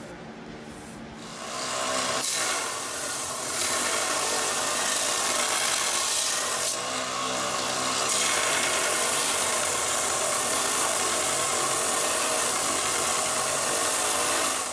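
Central Machinery belt sander running while a high-carbon steel tanto blade is pressed against the moving abrasive belt, a steady grinding hiss over the machine's hum. The grinding starts about a second in, swells and eases a few times as the blade is worked, and cuts off suddenly near the end.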